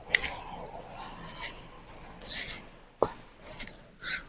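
Hands rubbing and clothing rustling in a series of short scuffs, with a sharp click right at the start and another about three seconds in.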